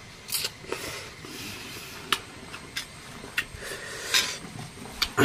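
A person eating instant noodles: slurping and chewing, with several sharp clicks of chopsticks and a spoon against a metal bowl.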